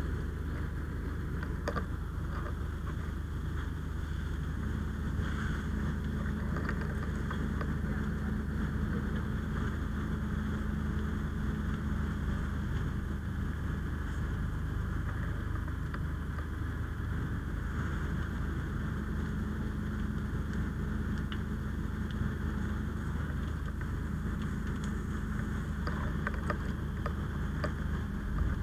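Fire engine running steadily at the scene, a low, even engine drone with a constant hum, with light wind on the microphone and a few faint clicks.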